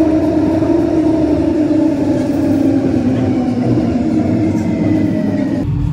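Train running on its rails: a loud, steady rumble with a drone that sinks slightly in pitch, cut off suddenly near the end.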